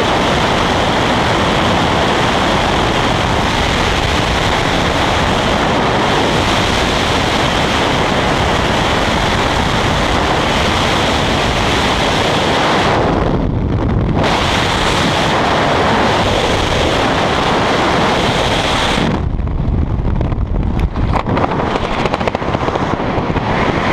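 Loud wind rushing over the microphone during a skydive freefall. About 19 seconds in, the high hiss drops away and the rush turns lower and gustier, with a few sharp flutters.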